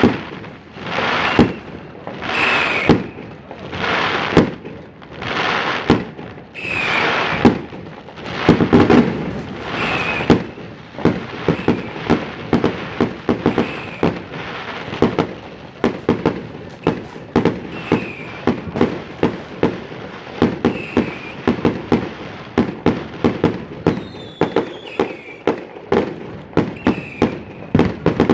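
New Year's Eve fireworks and firecrackers: a dense, continuous barrage of sharp bangs. Over the first ten seconds or so, a rushing swell rises and falls about every second and a half among the bangs.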